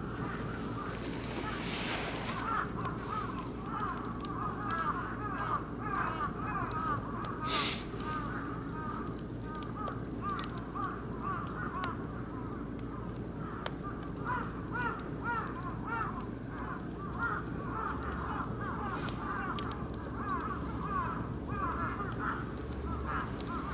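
A flock of birds calling continuously, many short overlapping calls, over an oak and beech wood fire crackling with sharp pops.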